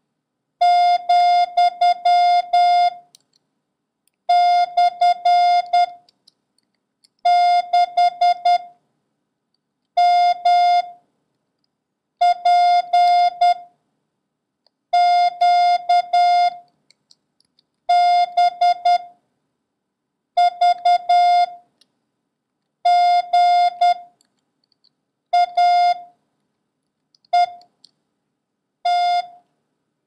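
Morse code practice tone sending a random run of single letters, numbers and punctuation marks, one character at a time. A steady mid-pitched beep keyed into dots and dashes, with each character followed by a pause of about a second, about a dozen characters in all.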